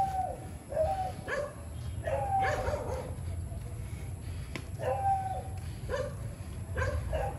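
A dog barking in short, repeated barks that come in loose clusters, over a steady low rumble.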